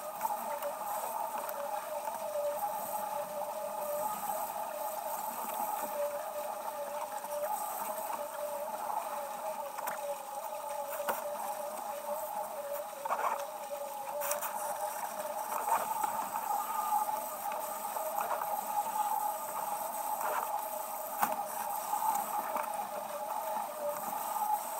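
Sailboat running downwind under spinnaker: water rushing along the hull, with a steady wavering hum and a few faint knocks from the boat.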